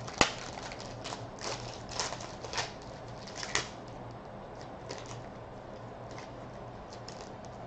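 Foil trading-card pack wrapper being torn and peeled open by hand, a run of sharp crackles and crinkles. The loudest comes just after the start, and the crinkling grows fainter in the second half.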